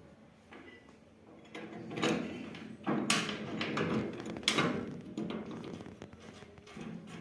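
Metal parts of a combine harvester being handled: several sharp knocks with sliding, scraping clatter, the loudest about three and four and a half seconds in.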